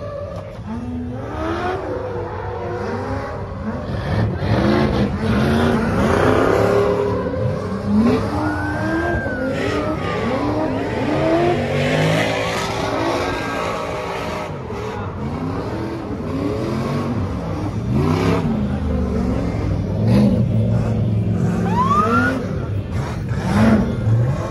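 Vehicle engines revving again and again in short rises and falls, several overlapping, with a couple of higher rising glides.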